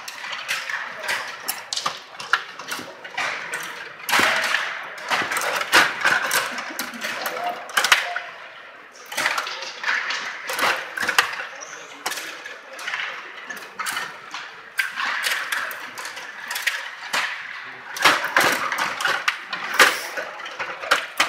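Stiga Play Off rod table hockey game in play: a constant, irregular clatter of clicks and knocks as the metal control rods are pushed, pulled and twisted, the plastic players spin, and the puck strikes the players and boards.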